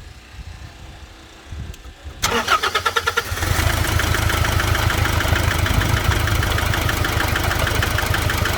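Nissan NP300 Hardbody engine cranked on the starter for about a second, catching and then running steadily. The engine has a misfire, a common fault in this generation with its electronic fuel delivery system.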